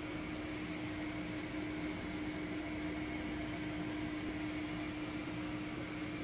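Microwave oven running: a steady hum with one strong low tone and a fainter high tone over an even whir of fan noise.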